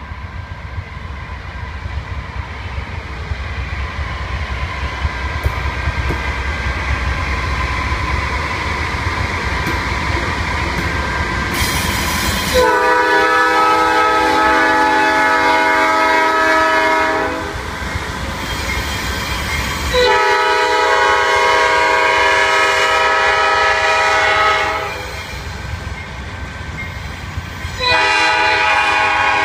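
Coal train rumbling as it draws closer and louder, then the locomotive's horn sounds several tones together: two long blasts and a shorter third near the end.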